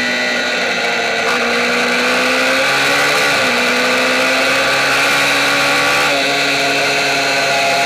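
Kayo MiniGP minibike engine heard onboard, running hard at high revs with a steady note. Its pitch briefly dips and climbs back at about three seconds in, and again at about six seconds.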